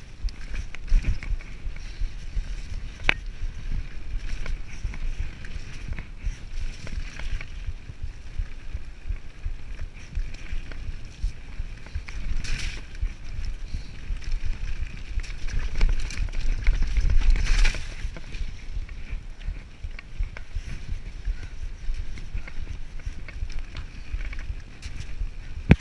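Mountain bike descending a rough dirt singletrack: tyre noise and rattling of the bike over the trail, with low wind rumble on the camera microphone, loudest about two-thirds of the way through.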